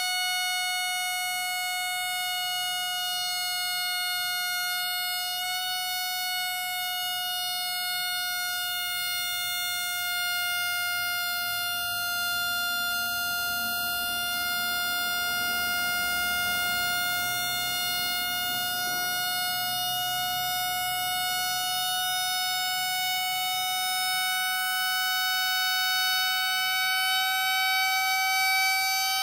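Red latex balloon slowly deflating, air leaking out past the LED light tied into its neck and making the neck squeal in one long trumpet-like tone. The pitch sags slightly in the middle and rises a little near the end.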